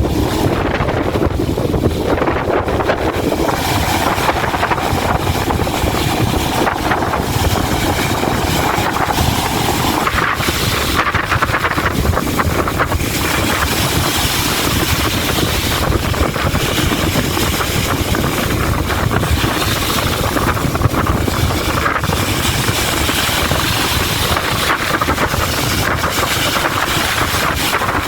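Strong wind buffeting the microphone over waves washing onto the Sea of Azov shore: a loud, steady rushing roar with a heavy low rumble.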